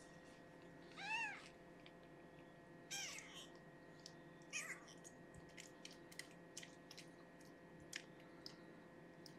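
A week-old newborn kitten mewing while being syringe-fed. One thin cry rises and falls in pitch about a second in, and two shorter, weaker cries follow a few seconds later. After them come a few faint small clicks.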